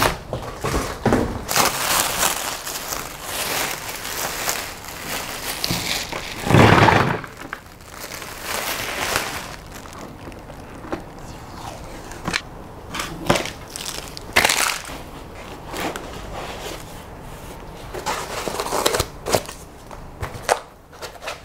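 Plastic packaging bag crinkling and rustling in irregular bursts as it is pulled off a newly unboxed 3D printer, with one loud thump about seven seconds in.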